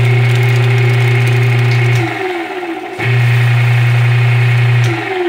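Tanquinho (semi-automatic washing machine) agitator motor running with a loud, steady electric hum. The hum cuts out about two seconds in, winds down with a falling whine, starts again a second later and stops again near the end, as the agitator alternates its turning direction.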